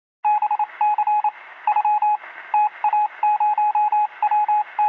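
Electronic beeps at a single steady pitch, keyed on and off in an uneven run of short and long tones, with a thin, radio-like sound.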